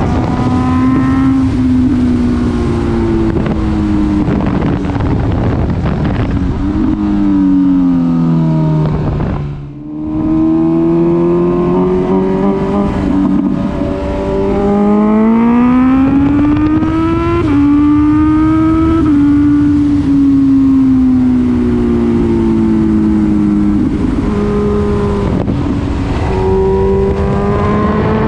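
Honda CB1000R inline-four engine heard onboard, revs climbing and falling with several gear changes that step the pitch abruptly. About ten seconds in the engine note falls away briefly, then it pulls again. Wind noise rushes on the action-camera microphone.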